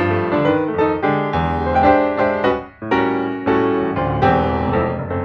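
Background piano music, a steady run of notes with a brief pause about two and a half seconds in.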